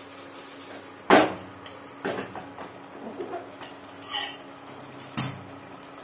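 A metal utensil knocking and scraping against an aluminium cooking pot about once a second, five times, with the sharpest knocks about a second in and near the end, over the steady simmer of a tamarind fish curry in the pot.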